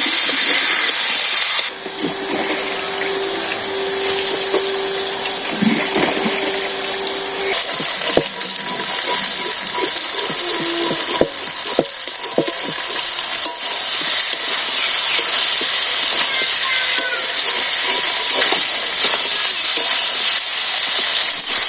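Spiced chicken and potatoes sizzling in hot oil in a pan while being stirred and braised, with the spatula clicking and scraping against the pan.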